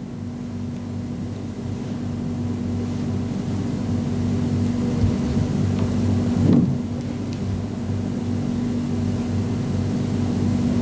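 Steady low hum with one strong droning tone, slowly getting louder, and a brief rustle about six and a half seconds in.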